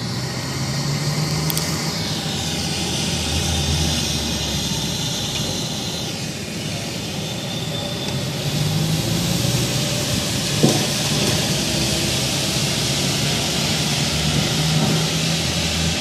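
A low droning hum that swells and fades in stretches over a steady hiss, with one sharp click about ten seconds in: the kind of unexplained sky drone reported as a 'strange sound'.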